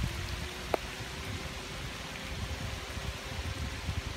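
Steady rain falling, with one sharp tap about three-quarters of a second in.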